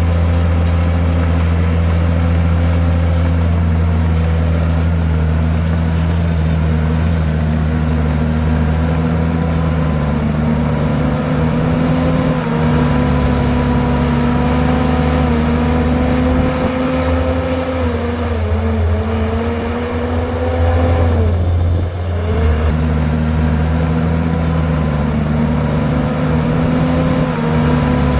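Komatsu bulldozer's diesel engine running steadily at working speed; its pitch sags briefly about two-thirds of the way through and then picks back up.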